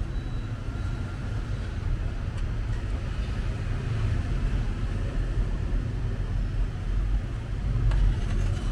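Steady low rumble, with a couple of light metal clicks near the end as a ladle pours sauce over fried tofu in a steel tray.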